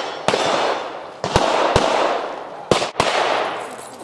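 About five 9mm pistol shots from a Springfield XDm 5.25, fired singly and in quick pairs, each followed by a long echoing tail.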